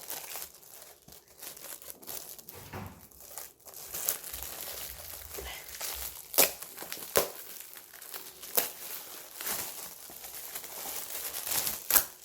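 Gift wrapping being crinkled and torn open by hand, an irregular rustling broken by a few sharp crackles.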